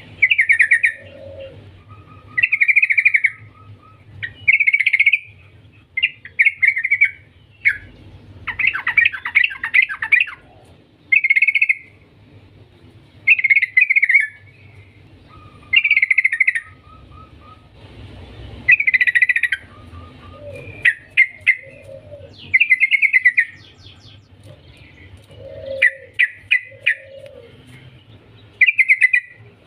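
Yellow-vented bulbul singing: loud, short chattering phrases repeated about every two seconds, some with rapid trills, mixed with a few brief level whistled notes.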